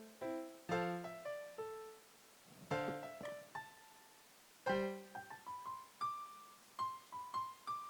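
Background piano music: phrases of struck notes and chords, with a brief pause near the middle and a short run of higher single notes in the second half.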